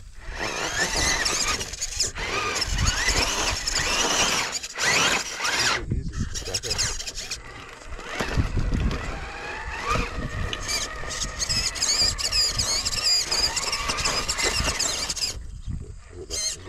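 High-pitched whine of an RC rock crawler's Hobbywing Fusion SE 1800 brushless motor, wavering up and down in pitch with the throttle, with low knocks as the truck crawls.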